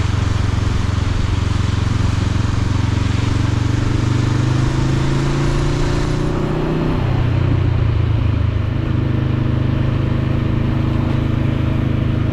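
Motorcycle engine running under way, its pitch rising as it accelerates for a couple of seconds before dropping back about seven seconds in, then holding steady. A steady rush of wind noise runs underneath.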